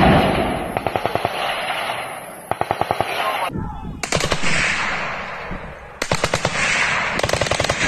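Several bursts of rapid automatic gunfire, each run of shots trailing off in an echo.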